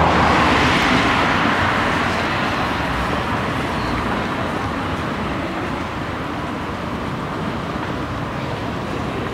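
Street traffic: a road vehicle passes close by about the start and slowly fades away over a steady city traffic hum.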